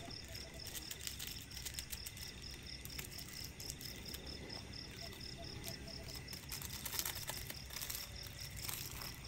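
Crickets chirping in a quick, even pulse. Near the end comes a light rustle as a seasoning packet is shaken over the pot.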